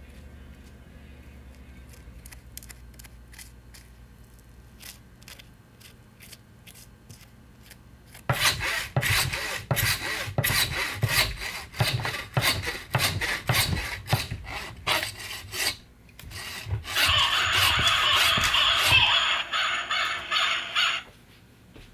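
Quick, loud rasping strokes, like a file or sandpaper worked back and forth, for about seven seconds starting partway in. After a short pause comes a steady hiss with a thin high tone for about four seconds, which cuts off near the end.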